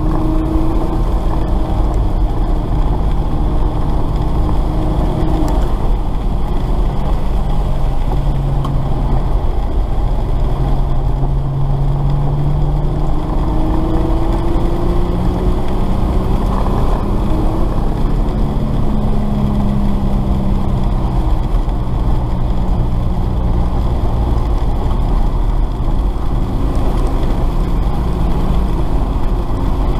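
VW Golf 6 GTI driving hard on a wet track, heard from inside the cabin: its engine note rises and falls several times over a steady rumble of tyre and road noise.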